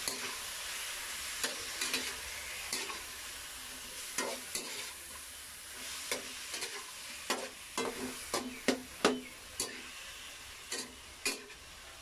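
Spatula stirring chicken pieces in a wok, scraping and clinking against the pan in repeated sharp strokes, coming thickest about seven to ten seconds in, over a steady sizzle of frying.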